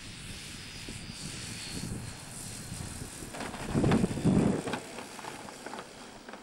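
Large electric RC model Tucano with a Plettenberg Predator motor and 24x12 propeller coming in to land on a runway, its propeller faintly whirring at low throttle. About four seconds in comes a loud low rumble as it touches down, then a run of light clicks as it rolls out.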